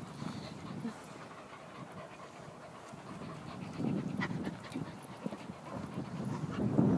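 A dog panting, with louder rough noise swelling about four seconds in and again near the end.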